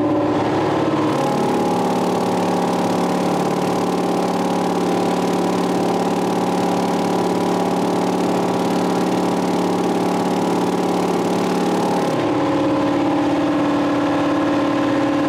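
Mr. Deburr vibratory tumbler running, its tub of abrasive media shaking as it smooths the layer ridges off 3D-printed parts: a steady machine hum. About twelve seconds in, the pitch of the hum changes.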